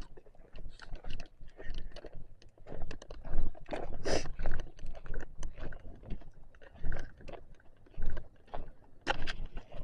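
Irregular scraping, rustling and clicks of handling or movement close to the microphone, over a low wind rumble.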